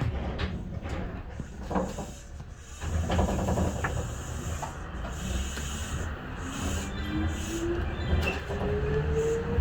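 Tokyo Monorail 1000-series train pulling away and gaining speed: a low running rumble with scattered knocks, and from about six seconds in a motor whine that rises steadily in pitch as it accelerates.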